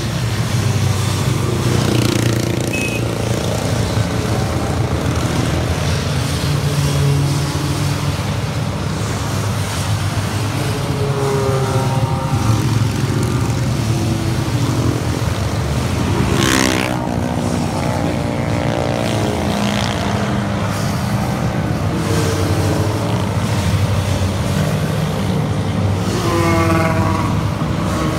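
A procession of motorcycles passing along a motorway below, their engines running in a steady blend. Every so often one bike's engine note sweeps past and falls in pitch. A brief sharp sound comes about two-thirds of the way through.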